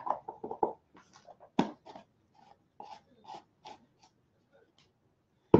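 A run of small clicks and scrapes from the lid being put back on a jar of ink and the jar handled on a wooden table, with one sharper click about a second and a half in.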